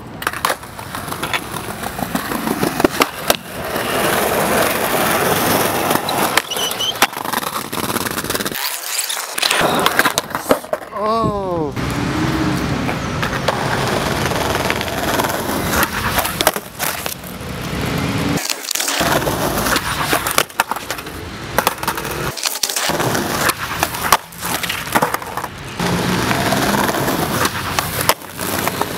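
Skateboard wheels rolling loudly over concrete and paving, broken by sharp cracks and slaps of tail pops, ledge grinds and landings, over several separate takes. People's voices call out at times, one rising shout partway through.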